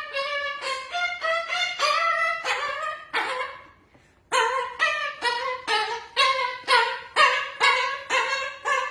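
Music: a tune of short, separate pitched notes, about three a second, breaking off briefly about four seconds in before carrying on.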